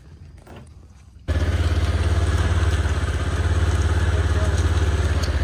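Side-by-side utility vehicle's engine running steadily with a fast, even low pulse, cutting in suddenly about a second in.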